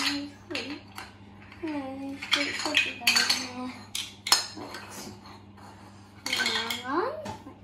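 Small plastic toy food pieces and Play-Doh tub lids clicking and clattering against a tiled floor as they are picked up and set down, a dozen or so sharp knocks. A child's wordless voice comes in briefly in between.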